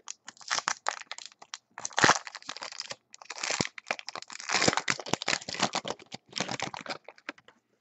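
Foil trading-card pack wrapper being torn open and handled, crinkling and crackling in irregular bursts with a few sharper cracks.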